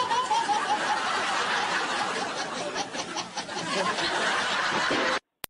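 A group of people laughing, dense and continuous, cutting off abruptly about five seconds in, followed by a single click.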